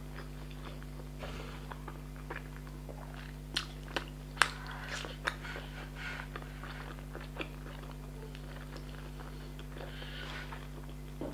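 A person chewing a mouthful of food close to the microphone with the mouth closed: wet mouth clicks and smacks, thickest and loudest about four seconds in, over a steady low hum.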